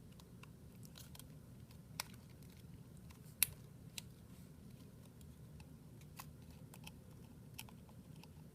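Scattered light clicks and taps as the Galaxy S7 Edge's internal plastic covers are handled and pressed into the phone's frame, the sharpest about three and a half seconds in, over a low steady hum.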